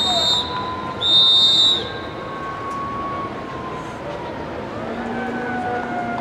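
Referee's whistle: one blast cuts off right at the start and a second short, shrill blast sounds about a second in.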